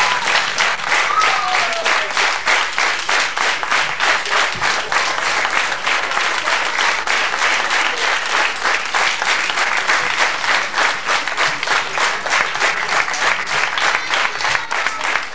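An audience applauding, the clapping settling into a steady rhythm of about three claps a second.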